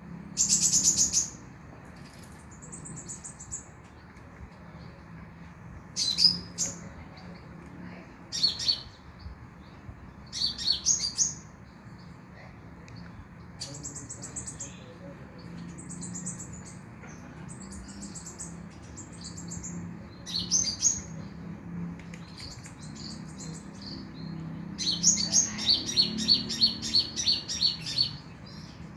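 Kolibri ninja (sunbird) singing: short, high, thin chirping phrases every few seconds, then a fast run of rapidly repeated notes near the end. A steady low hum runs underneath.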